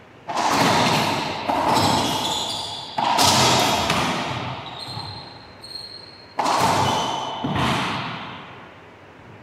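Racquetball rally: five sharp, loud hits of the ball off racquets and walls, each ringing out in the court's long echo. Between the hits come a few faint high squeaks of shoes on the wood floor.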